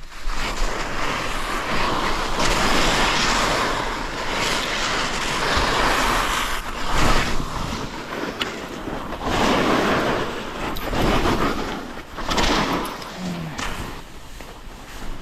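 Rushing noise of a ski descent: skis sliding over snow with wind on the microphone, swelling and fading several times.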